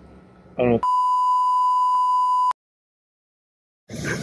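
A censor bleep: one steady, single-pitch beep lasting under two seconds, laid over a short burst of a man's voice and cut off sharply, followed by dead silence from an edit.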